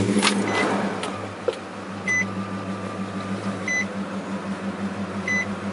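Nissan Titan's V8 engine running just after starting, settling into a steady idle. A dashboard warning chime beeps four times, about every one and a half seconds.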